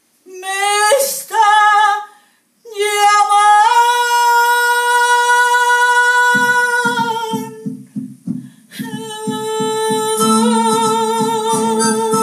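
A woman with a mezzo-soprano voice sings a Mexican song, with a few short phrases and then a long held note. About six seconds in, an accompaniment comes in with an even pulsing beat. Her singing returns over it with a wavering vibrato.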